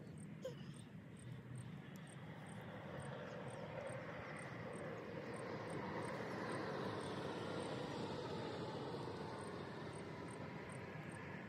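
Distant engine drone passing by, swelling to its loudest about seven seconds in and then slowly fading. A faint high chirp repeats about twice a second throughout.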